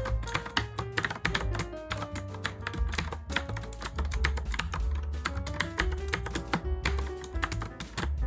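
Continuous typing on a PENNA typewriter-style mechanical keyboard with Cherry MX Blue switches: a dense, uneven run of clicky keystrokes. Background music plays under it.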